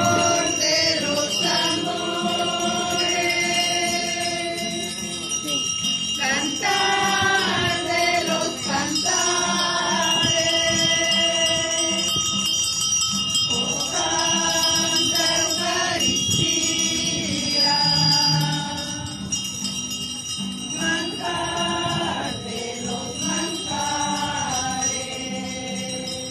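A group of voices singing a hymn to acoustic guitars, with a steady high ringing above it throughout.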